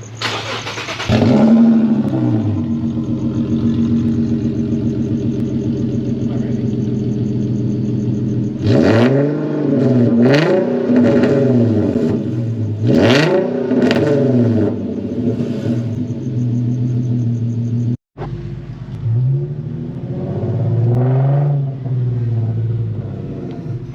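Infiniti Q50 engine with test pipes and a muffler delete, rising sharply about a second in and then idling with a loud, raspy note, blipped up and down in several quick revs in the middle and once more near the end.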